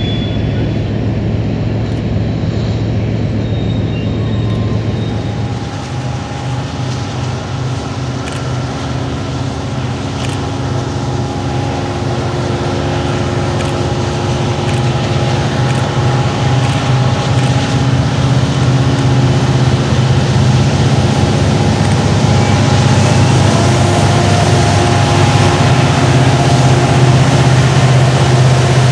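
Diesel locomotive engines running under power with a steady drone, growing gradually louder.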